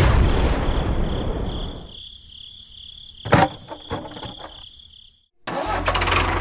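A rush of noise that fades over about two seconds, with a steady high chirping tone behind it and a sharp click about three seconds in. After a brief dropout, a small engine starts idling with an even knocking beat for the last second.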